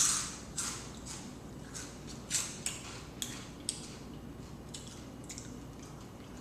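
Close-up mouth sounds of chewing food: irregular short, crisp, wet clicks, the loudest right at the start.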